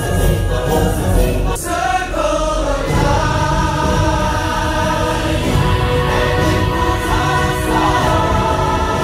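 Music with a choir singing sustained, soaring lines over full instrumental backing.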